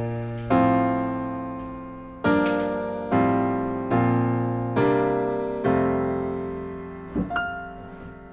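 Background piano music: slow chords struck about once a second, each ringing out and fading, dying away near the end.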